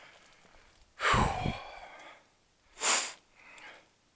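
A person's breath and voice sounds: a falling, voiced sigh about a second in, then a short, sharp noisy breath near three seconds.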